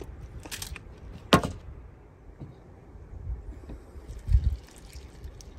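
Milk poured from a plastic jug onto bran flakes and berries in a bowl, a faint trickle and patter in the last couple of seconds. A couple of sharp clicks come before it, and there is a dull low thump about four seconds in.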